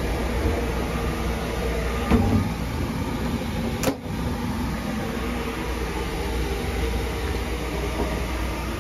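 Running noise of the Sunrise Izumo's 285 series electric sleeper train, heard inside its toilet compartment as a steady low rumble. Two short sharp clicks come through it, about two and about four seconds in.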